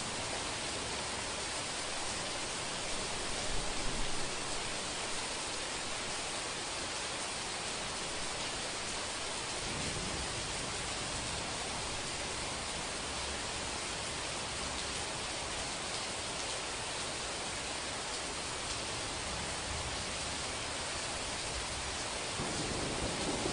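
Steady heavy rain hiss. Low distant thunder begins to rumble near the end.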